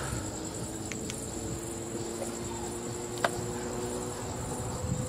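Crickets chirping in a steady, fast-pulsing high trill, over a low rumble, with one sharp click a little over three seconds in.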